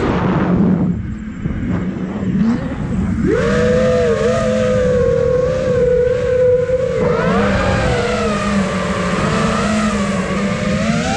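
Five-inch FPV quadcopter's brushless motors and propellers whining with the throttle: the pitch drops sharply at the start, holds fairly steady for a few seconds mid-way, then wavers and climbs again near the end. A rushing noise runs underneath.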